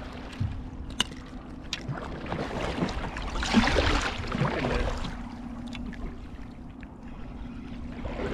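Water splashing as a fish thrashes at the surface beside a kayak, loudest in the middle, after two light clicks about a second in.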